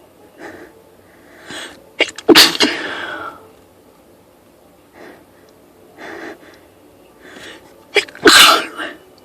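A woman sneezing twice, about six seconds apart, each loud sneeze led by a short intake of breath, with fainter breaths between. The sneezes are part of a fit of sneezes set off by a spritz of perfume.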